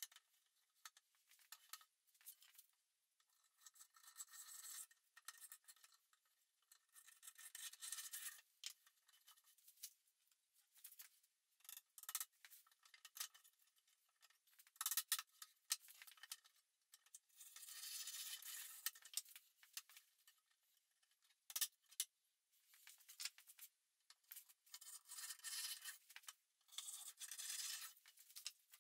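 Faint scraping and rubbing of pine boards being slid and shuffled into place against each other and a steel rule, in short strokes of a second or two, with a few light knocks.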